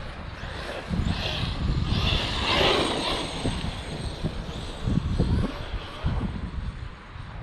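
Large electric RC car being driven on wet ground, its brushless motor whining in bursts about a second in and again around two to three seconds. Wind rumbles on the microphone underneath.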